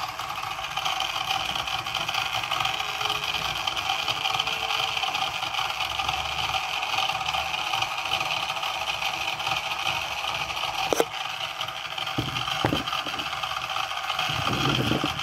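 Small DC gear motors of an Arduino robot car running steadily with a whir, the car in its normal state with the motors switched on. A sharp click about eleven seconds in and a few faint knocks just after.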